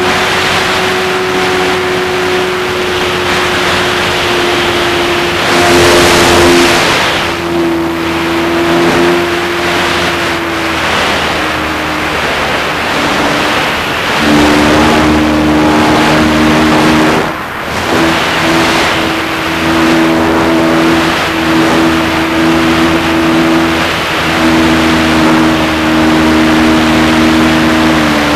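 Radio-controlled P-51 model plane's motor and propeller whining in flight, heard from the onboard camera over wind rush on the microphone. The pitch holds steady and then steps up and down with the throttle, with a brief dip about two thirds of the way through.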